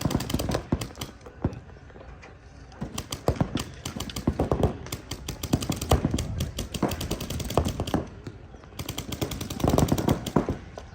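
Paintball markers firing rapid strings of shots, in several bursts of fast pops with short lulls between them.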